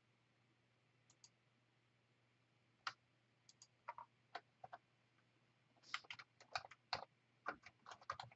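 Faint clicks of a computer keyboard and mouse. A few scattered keystrokes come first, then a quick flurry of clicks in the last couple of seconds.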